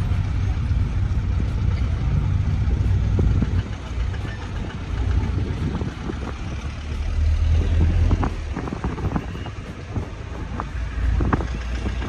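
Low rumble of a moving road vehicle, with a few short knocks and rattles in the second half.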